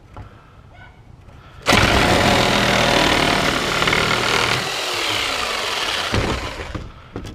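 Corded electric power saw started about two seconds in and cutting through a wooden furring strip, running steadily for about four seconds before it stops.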